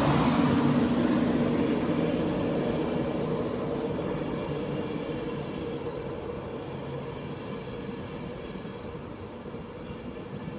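An InterCity 225 train, with a Class 91 electric locomotive and its coaches, rolls along the platform and slows to a stop. The running noise and a low steady hum fade away as the train halts.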